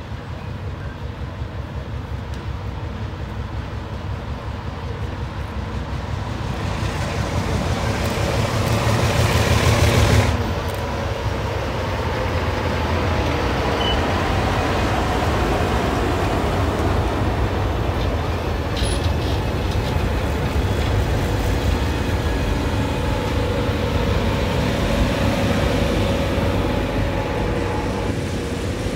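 Diesel locomotives, a 44 class in front and a 42 class behind, hauling a passenger train slowly past. The deep engine rumble builds to a peak about ten seconds in as the locomotives go by, then gives way to the steady rolling noise of the carriage wheels on the rails, with faint thin squealing tones.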